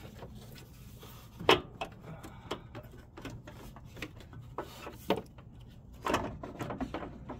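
Scattered knocks and clicks of a replacement radiator's plastic end tank and mounting tabs being handled and seated against the car's mounts, the loudest a sharp knock about one and a half seconds in and a cluster of smaller clicks around six seconds in.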